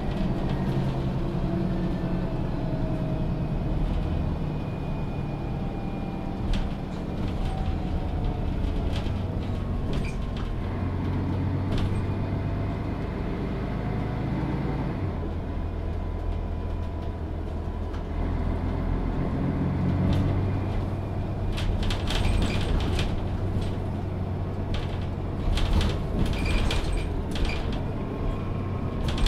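Setra S 415 NF city bus on the move, its diesel engine running with the pitch shifting as it speeds up and slows. Scattered clicks and rattles come through, more of them near the end.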